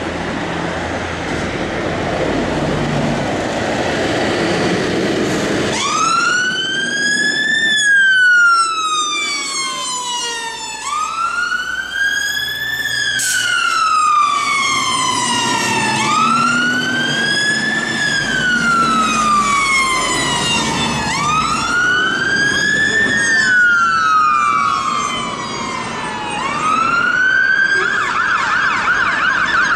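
Fire engine pulling away, its diesel engine rumbling low. About six seconds in, its electronic siren starts on a slow wail that rises and falls about every five seconds. Near the end it switches to a fast yelp.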